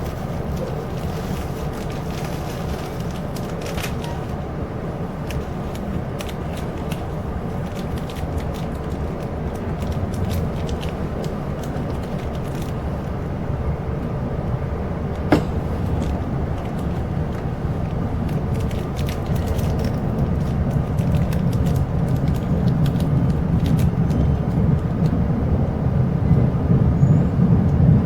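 Chu-Kuang Express locomotive-hauled passenger train running, heard from inside the carriage: a steady low rumble of wheels on the track with scattered clicks. One sharp click comes about halfway through, and the rumble grows louder over the last ten seconds.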